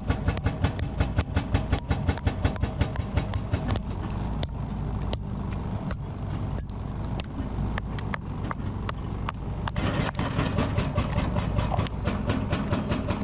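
Excavator-mounted hydraulic rock hammer pounding solid rock, with rapid sharp blows at about five a second over the steady drone of the excavator's diesel engine. The blows thin out and become irregular in the middle, then pick up again, fainter, near the end.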